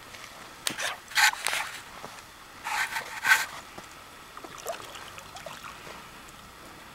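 A hooked rainbow trout thrashing and splashing at the surface of the water, in two bursts of splashing about a second apart, the first near the start and the second about three seconds in.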